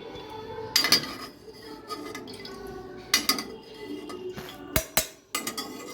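Kitchen utensils clinking against cookware about five times, three of them close together near the end, while boiled chicken pieces are handled.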